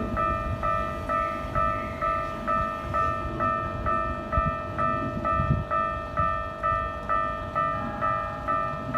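Japanese railway level-crossing warning bell ringing its repeated electronic ding, about two and a half strikes a second: the crossing is closed for an approaching train. An uneven low rumble runs underneath.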